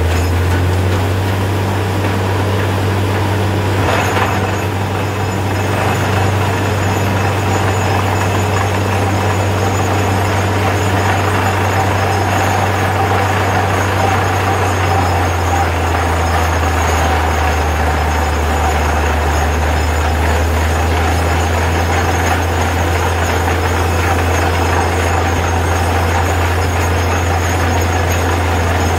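Truck-mounted borewell drilling rig running steadily while it drills. Its engine and air compressor make a loud, deep drone, and muddy water and rock cuttings are being flushed up out of the bore. The drone drops slightly in pitch about halfway through.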